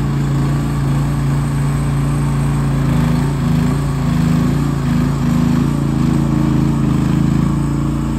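Mini excavator's Briggs & Stratton 420cc gas engine running steadily while the machine travels on its rubber tracks, its note wavering slightly through the middle.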